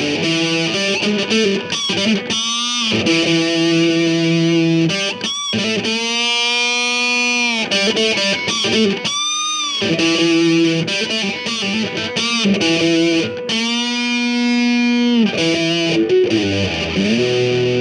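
Electric guitar played through a Behringer HA-40R practice amp fitted with a Celestion 10-inch speaker: a run of picked notes and chords with several long held notes that bend and waver in pitch.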